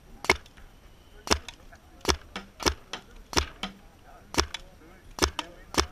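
Paintball marker shots: about eight sharp single pops fired at uneven intervals, a few followed by a fainter click.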